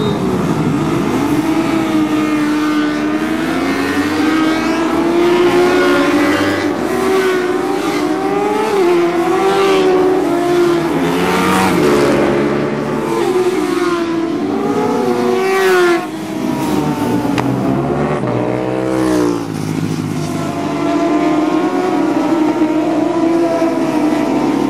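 A field of superbike racing motorcycles accelerating hard away from the start, many engines revving at once in overlapping rising sweeps that break off at each upshift. Some bikes pass by with a falling pitch.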